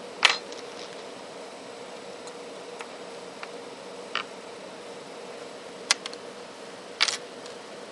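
Sharp little clicks of plastic and metal phone parts being handled as a mobile phone is taken apart, with a metal tool prying at an internal module. Four clicks, the loudest just after the start and a double one near the end, over a steady hiss.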